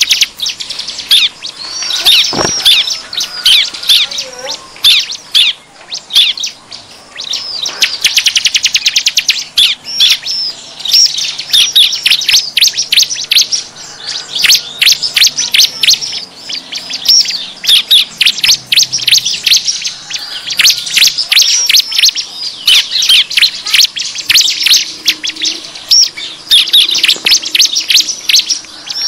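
Bar-winged prinias (ciblek) calling noisily: dense, fast, high chirps and rattling trills that overlap without pause, the busy prinia chatter used as a lure call to draw in wild birds.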